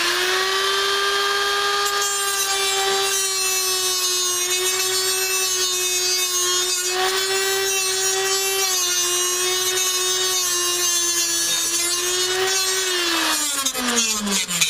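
Small angle grinder with a cutoff wheel cutting metal: a steady high whine with a gritty cutting hiss. Near the end the motor winds down, its pitch falling, after the wheel has gone only about three-quarters of the way through.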